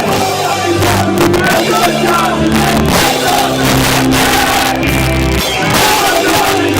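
Live hardcore band playing loud: distorted guitars and bass holding low notes that shift every second or so, with drums, cymbals and vocals. Recorded through a cheap cell phone's microphone, so the sound is harsh and distorted.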